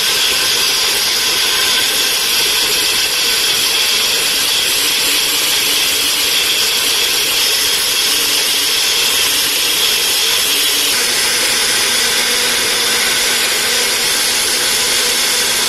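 Small bullet-style personal blender running steadily at full speed as it purées a wet herb-and-hot-pepper marinade, with a slight change in its sound about eleven seconds in.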